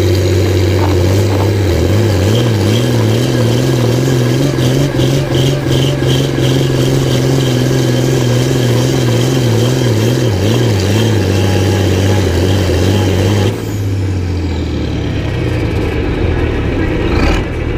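John Deere tractor engine running hard under load in a tractor pull, its speed wavering up and down as it lugs. About thirteen seconds in it is throttled back and drops to a lower, quieter running sound as the pull ends.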